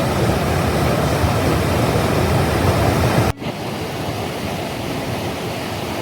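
Fast river water rushing steadily over rapids. About three seconds in it cuts abruptly to a slightly quieter, thinner rush of water.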